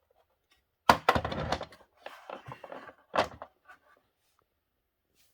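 Monitor stand parts knocked and fitted together by hand: a sharp knock about a second in, then clattering and scraping, and another knock about three seconds in.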